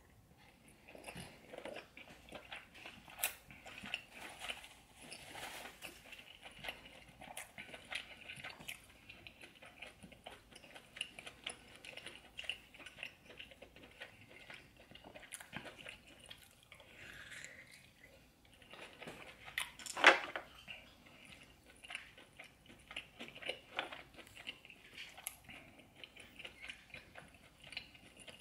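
A person chewing and biting into seafood-boil food close to the microphone, with many small clicks and smacks of eating and one much louder sharp snap about two-thirds of the way through.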